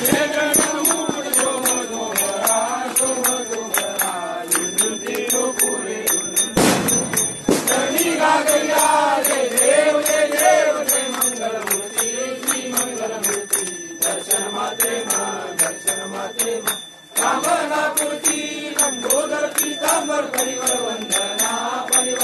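Devotional aarti to Ganesh, sung as a chant by several voices, with jingling bell-like percussion keeping time. A short rush of noise breaks in about six and a half seconds in.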